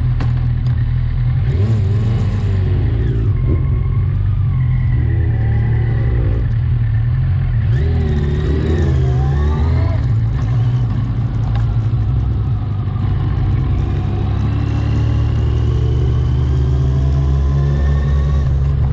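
A vehicle driving on the road: a steady low engine and road rumble, with engine notes rising and falling as the speed changes.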